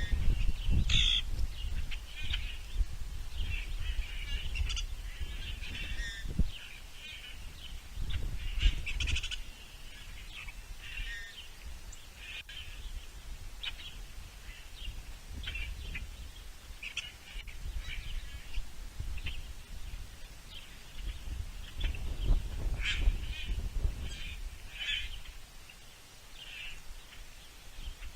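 Outdoor birds giving many short chirps and calls, scattered irregularly, over a steady low rumble.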